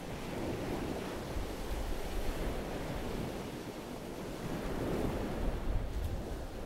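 Waves washing on a beach in a steady, swelling hiss, with wind rumbling on the microphone.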